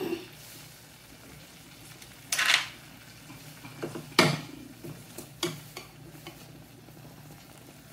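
A spoon stirring and scraping goat liver curry in a kadai on the stove: a scraping stir about two and a half seconds in, a sharp clink of spoon on pan about four seconds in, then a few lighter taps.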